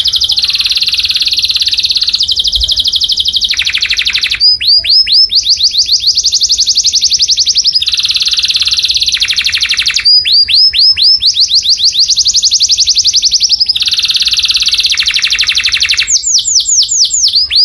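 Canary singing continuously and loudly: very fast rolling trills alternate every few seconds with runs of sharp, down-sweeping whistled notes, the typical phrase-by-phrase tours of canary song.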